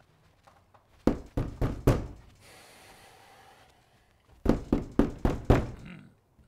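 Heavy knocking on a wooden door: two rapid bouts of four or five knocks, a few seconds apart.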